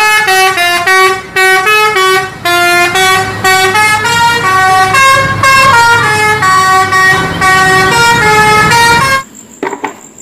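Indonesian multi-tone 'telolet' bus horn playing a tune of short, loud musical notes stepping up and down, with a couple of short pauses. It cuts off suddenly about nine seconds in.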